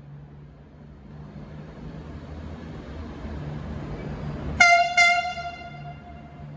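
V/Line VLocity diesel multiple unit's horn sounds twice about four and a half seconds in: a short toot, then a longer blast that fades away. Underneath, the departing train's rumble grows steadily louder.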